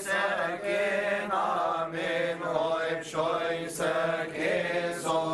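Male voices singing Coptic Orthodox liturgical chant. The melody is long and drawn out over a steady held low note.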